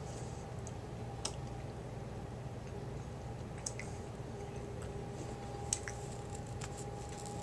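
A person eating a Klondike ice cream cookie sandwich: a few faint, scattered clicks and soft squishes of biting and chewing over a steady low background hum.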